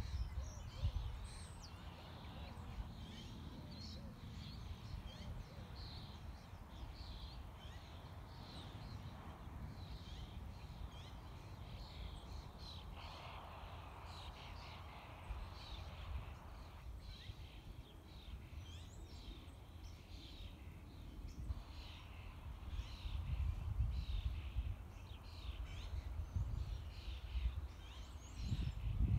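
Small birds chirping continually, many short calls overlapping, with wind gusting against the microphone at times, strongest near the end.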